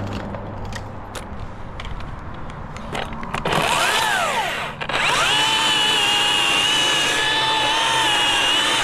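Electric chainsaw starting up about three and a half seconds in: its motor whine rises and falls and stops for a moment, then holds at a steady high pitch to the end.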